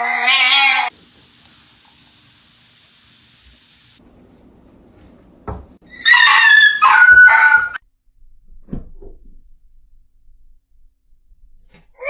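A dog's whining cry breaks off about a second in. After a pause and a knock comes a run of three loud, high-pitched whining cries from a dog.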